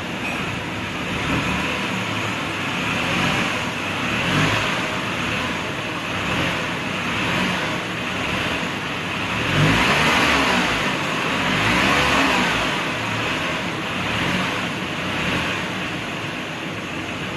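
Tata Punch's 1.2-litre three-cylinder petrol engine revved repeatedly with the accelerator pedal, the revs rising and falling every second or two and highest about ten seconds in.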